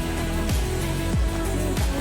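Background pop music with a steady beat: held notes over a repeating low drum about every 0.6 seconds.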